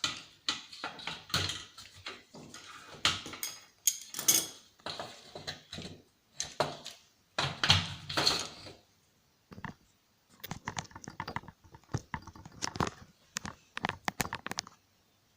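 Plastic and metal parts of a TV/DVD combo being handled and pulled apart: irregular clicks, knocks, rattles and short scrapes, with a brief pause about two-thirds of the way in.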